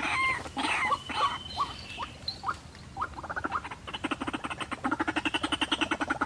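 White-breasted waterhen calling: a string of short rising notes, then about three seconds in a fast, even chattering of about ten pulses a second that grows louder.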